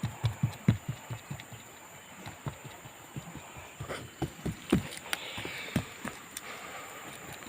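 Irregular dull thumps and knocks, several a second, with a short hissing scrape about five seconds in.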